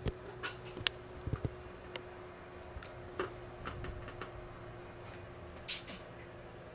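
Scattered small clicks, taps and scrapes of a hard drive and its drive sled being handled and fitted into a Mac Pro's drive bay, over a faint steady hum.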